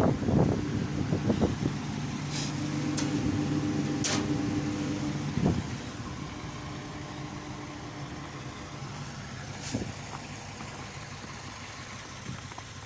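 An engine idling with a steady low hum, which fades after a knock about five and a half seconds in; a few sharp clicks sound over it.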